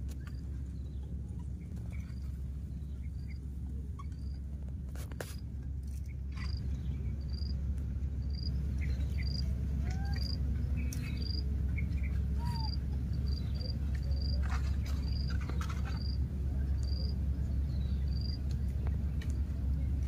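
Outdoor ambience: a short, high chirp repeats about once a second, with a few fainter short calls in between, over a steady low rumble.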